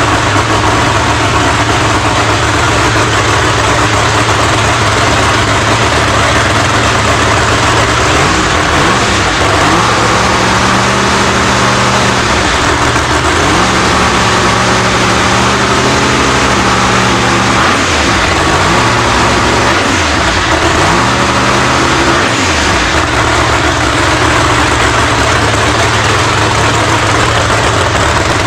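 A drag race car's engine idling loudly, with its revs rising and falling several times through the middle stretch.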